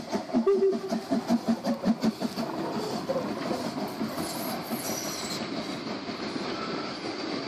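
Harzer Schmalspurbahnen metre-gauge 2-10-2T steam locomotive 99 7243 passing close by under steam, its exhaust chuffing about four beats a second. After about two seconds the chuffing gives way to a steady rolling of wheels on rail with a thin high squeal as the train runs through the curve.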